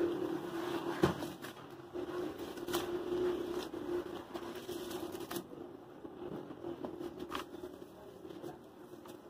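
Hands squeezing and crumbling wet, gritty cement paste in a tub of water: crackly, gritty squishing with scattered sharp clicks, the loudest about a second in.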